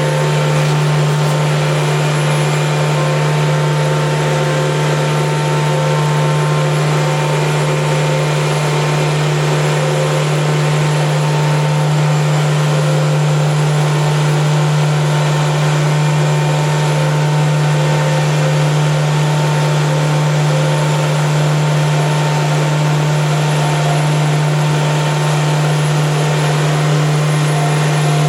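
Truck-mounted water extraction unit running: its Cummins diesel engine and large vacuum blower making a loud, steady drone with a strong low hum.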